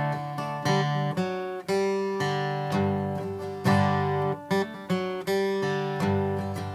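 Acoustic guitar playing a chord progression, strummed chords with a picked hammer-on and pull-off riff on the D chord between them.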